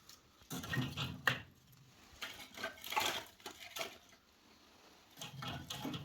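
Split spruce kindling clattering and knocking together as the pieces are stacked in a fireplace, in three bunches of sharp wooden knocks with short pauses between.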